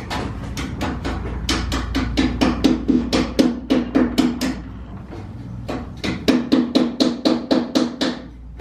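Hammer tapping rapidly on an old wooden window sash, chipping out the old glazing putty to free the glass. The sharp taps come about four a second, each with a short low ring, and pause briefly about halfway through.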